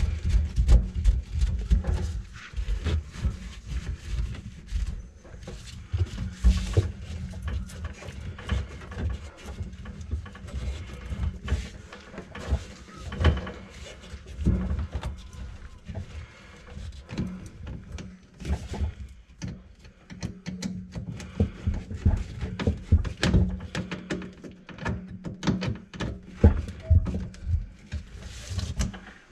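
Hand-fed drum drain auger being worked into a kitchen sink drain line clogged with grease: dense, irregular knocking and rattling of the cable against the pipes, over a steady low hum.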